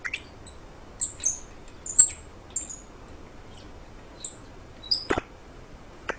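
Thread tap turned by hand in a head-stud hole of a Subaru EJ257 aluminium block, squeaking in short, high-pitched chirps about once or twice a second as it cuts through threads too tight for an ARP head stud. The loudest squeak comes about five seconds in.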